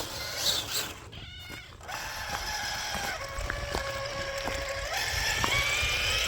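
Electric motor and geared drivetrain of a Traxxas TRX-4 RC crawler running on tracks, a steady whine that shifts in pitch and rises near the end as the throttle changes.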